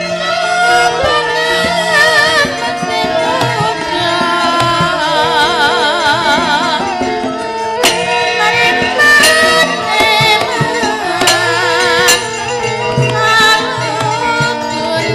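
Javanese gamelan accompaniment for a shadow-puppet play: bronze gongs and metallophones playing with a drum, and a singer holding long wavering notes. A few sharp clacks cut through, two of them about 8 and 12 seconds in.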